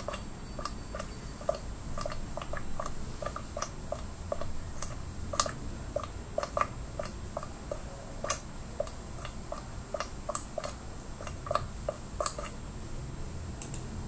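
Thick polenta boiling in a pot, its bubbles bursting in short, irregular plops, about two or three a second.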